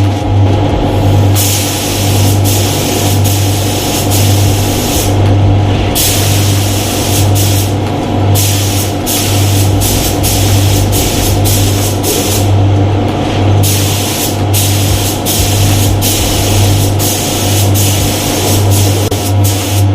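Air spray gun hissing in repeated bursts of varying length as it is triggered on and off while painting, over a steady low hum.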